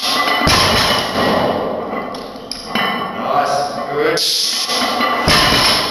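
Barbell loaded with bumper plates set down on a rubber gym platform during snatch-grip stiff-legged deadlift reps: two dull thuds, about half a second in and again near the end. Steady background music plays throughout.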